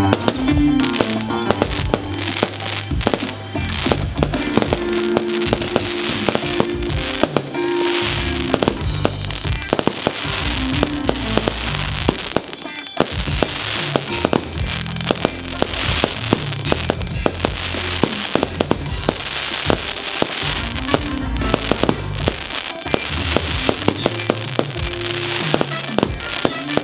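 Aerial fireworks shells bursting and crackling, with many sharp bangs in quick succession throughout, over loud show music.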